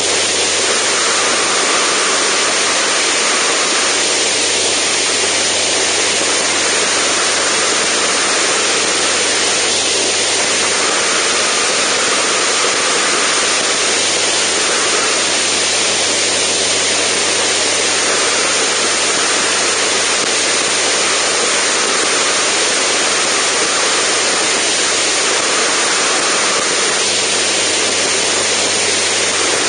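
Steady loud rush of air over an outside-mounted microphone in flight, with the low drone of the Zenith STOL CH750's engine and propeller underneath.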